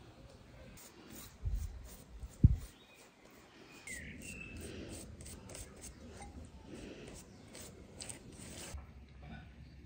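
Pastry brush bristles stroking beaten egg onto raw dough pastries on a metal baking tray: short soft swishes, repeated about two to three times a second. Two dull thumps come about one and a half and two and a half seconds in, the second one the loudest, and a bird chirps briefly.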